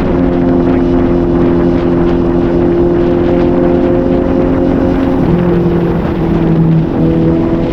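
Suzuki GSR750's inline-four engine running under way, holding steady revs with a drop in pitch about five seconds in and a rise again near the end.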